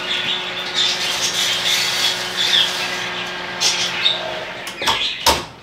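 Metal loaf pans scraping and squeaking as they slide onto a wire oven rack. About five seconds in, the oven door is swung shut with a few quick knocks.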